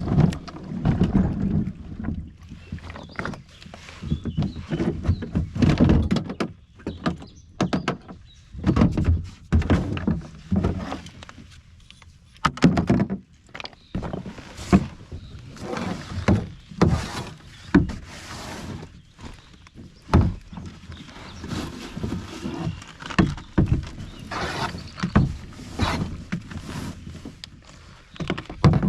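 Perception Sound 10.5 kayak hull being knocked and scraped as gear is handled in and around it: irregular thunks and clunks with rustling between.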